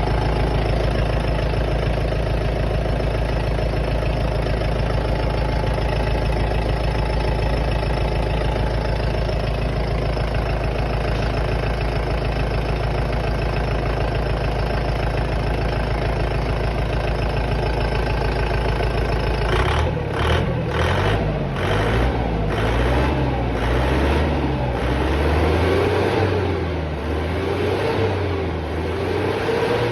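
Excavator diesel engine running steadily. About two-thirds of the way through, the sound changes: the engine pitch rises and falls as the machine works, with a few sharp knocks just after the change.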